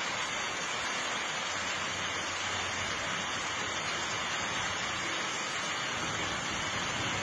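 Steady, even rushing noise with no pitch and no separate events.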